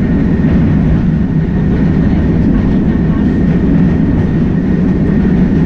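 X1-class tram running along street track, heard from inside its driver's cab: a steady low rumble from the wheels and running gear, with a faint steady whine above it.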